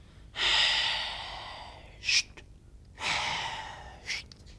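A young man sighs heavily twice. Each sigh is a long, noisy breath out that fades away and ends with a brief sharp sound. They are sighs of sadness from someone whose heart is heavy.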